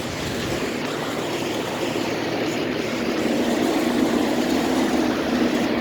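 Outdoor air-conditioner condenser fan running after cycling back on: steady rushing airflow with a low motor hum that grows stronger partway through.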